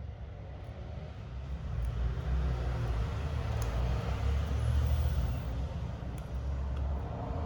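Low rumble of a passing road vehicle, building over the first two seconds, strongest around the middle and easing off near the end.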